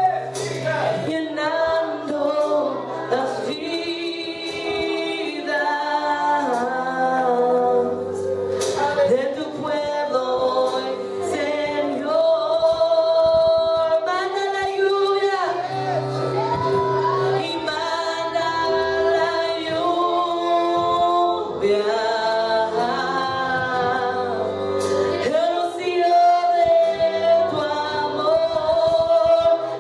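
Live worship music: singers leading a sung praise song over sustained low keyboard or bass chords.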